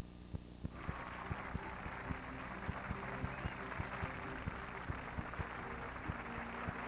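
Game-show studio audience applauding, starting suddenly about a second in and holding steady, with low sustained music notes. A steady electrical hum and regular clicks from the old videotape recording run underneath.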